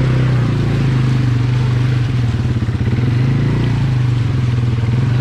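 ATV (quad bike) engine running steadily at low revs, its note holding nearly level.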